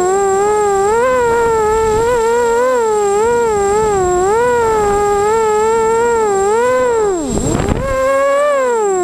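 Emax Nighthawk 250 racing quadcopter's 2280 KV brushless motors and 5040 props whining, heard from the onboard camera, the pitch wavering up and down constantly with the throttle. A little after seven seconds in, the pitch drops steeply as the throttle is chopped, then rises straight back as power comes on again.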